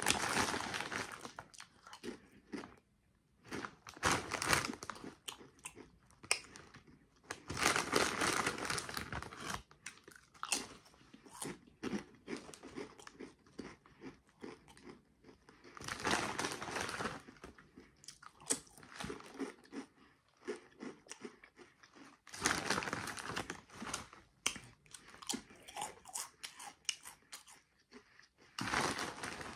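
Doritos Loaded Pepperoni Pizza tortilla chips being bitten and chewed close to the microphone, crunching, with the crisp snack bag rustling in several louder bursts as it is handled and reached into.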